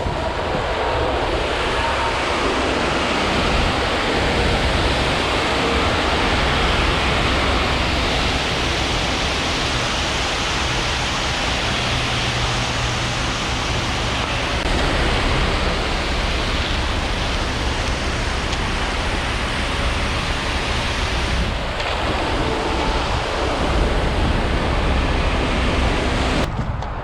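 Steady rushing wash of wet ready-mix concrete sliding down a concrete truck's chute, with the truck's engine running underneath.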